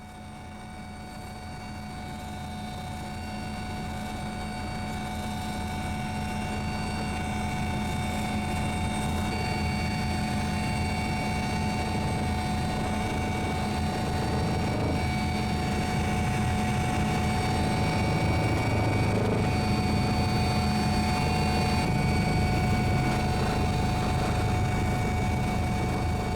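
Steady drone of a helicopter's engine and rotor, with constant pitched tones over a low rumble, fading in over the first several seconds and then holding steady.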